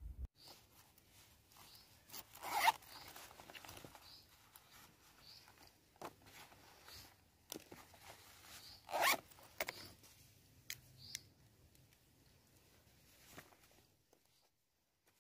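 Zipper on a fabric pencil case pulled twice, with a short rasp about two and a half seconds in and another about nine seconds in. In between there is lighter rustling as pens and paper are handled.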